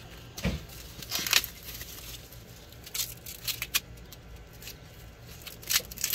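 Irregular rustling and scraping from something being handled, a string of short noises with a dull thump about half a second in.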